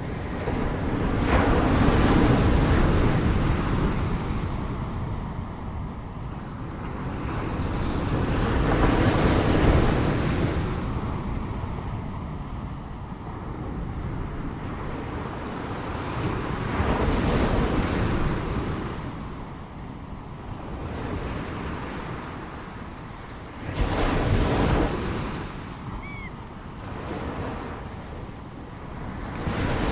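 Ocean waves breaking and washing back, the surf swelling and fading in slow surges about every seven to eight seconds, with the sharpest crash near the end.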